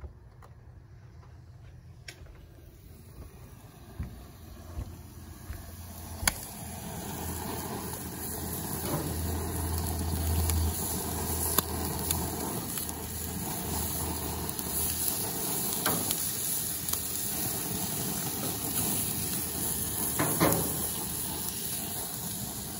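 Baby octopus sizzling on the grate of a gas barbecue grill: a steady hiss that swells a few seconds in, with occasional sharp clicks of metal tongs against the grate.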